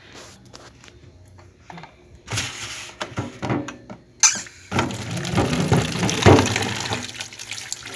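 A plastic basin and rag handled in a stainless steel sink, knocking and scraping, then a kitchen tap turned on about halfway through, running water steadily into the basin and over a cloth rag held under the stream.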